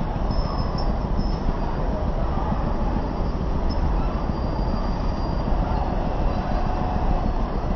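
Steady rumble of road traffic on a busy multi-lane highway: engines and tyres blending into one continuous noise.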